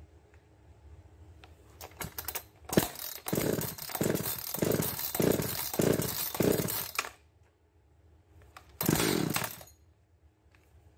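Two-stroke Echo chainsaw being pull-started with its recoil starter: a few clicks, then a run of about six rapid cranking strokes, then one more short pull near the end, without the engine settling into a steady run. The saw's carburetor is tuned lean.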